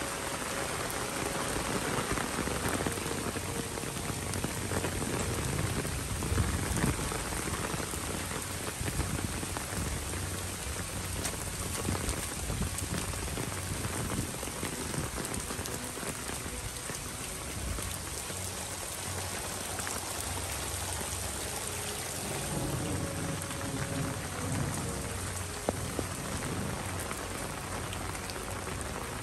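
Heavy rain pouring onto pavement, grass and parked cars, a steady dense hiss.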